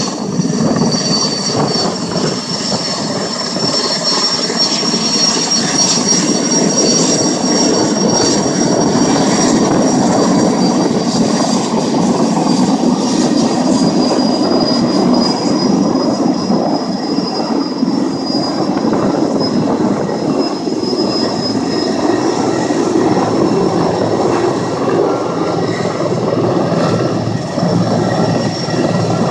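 Erickson S-64 Skycrane heavy-lift helicopter coming in to land: a loud, steady rotor rumble with a thin, high turbine whine from its twin turboshaft engines.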